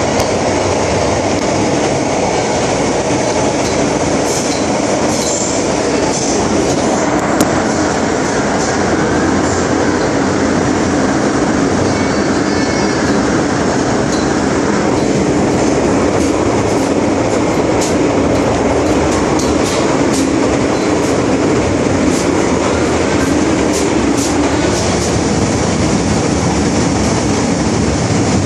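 MTR Island Line metro train running between stations, a steady rumble of wheels on rail.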